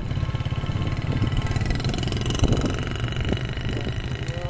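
Small engine of the vehicle carrying the camera running steadily as it rides along, a fast even low pulsing throughout.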